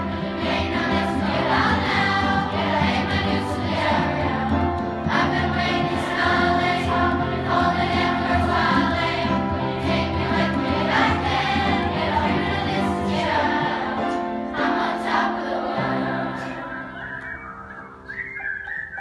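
Children's choir singing in full chorus with upright piano accompaniment. The final chord is held and fades away over the last few seconds.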